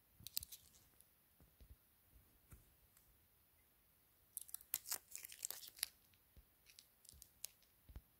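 Graphics card packaging being opened by hand: faint, scattered crinkles and tearing crackles, with a denser run of them a little past the middle.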